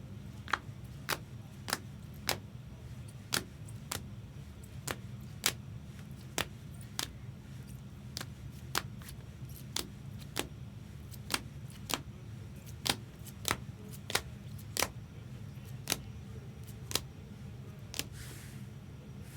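Sharp clicks at an irregular pace, one or two a second, as trading cards in hard plastic holders are set down and handled one after another, over a steady low hum.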